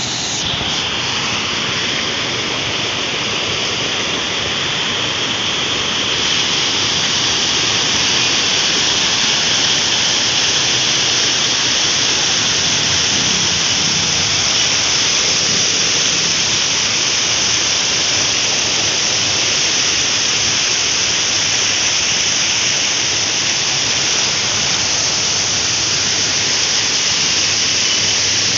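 Heavy flow of water spilling over a concrete reservoir overflow and splashing onto rocks below: a loud, steady rush.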